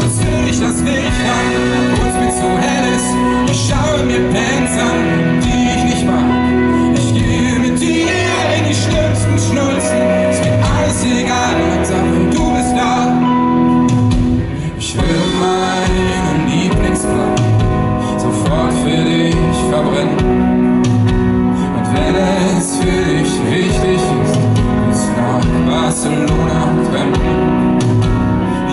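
Live pop-rock band playing a song with singing, at full volume. There is a brief drop in loudness about halfway through, after which the arrangement changes.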